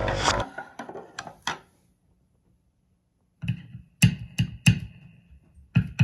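Music cuts off, then light clicks, a pause, and a run of sharp knocks and clicks with a low thump and a short ringing tone after several of them.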